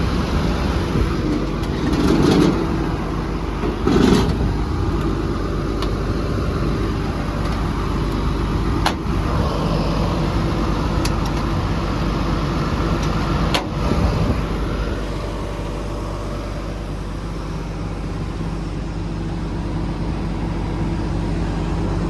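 Caterpillar 320D excavator's 6.4-litre diesel engine running steadily. Two brief louder rushes come near the start, and a couple of sharp clicks come later.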